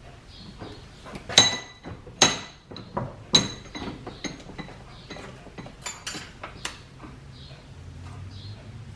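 Metal pieces or tools being handled and struck together: three sharp ringing clanks in the first few seconds, then lighter clicks and taps.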